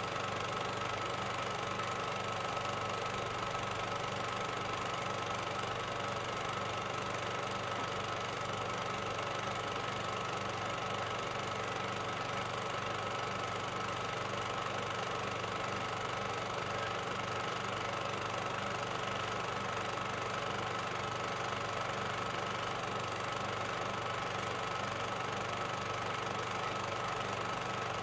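Steady mechanical running drone with a low hum and a constant high tone on top, unchanging throughout: the background noise of a silent amateur film transferred to video.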